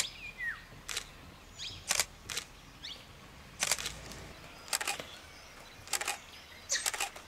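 Camera shutters clicking in short bursts, often in quick pairs, a cluster about once a second. The sharp double clicks are typical of SLR shutters being fired.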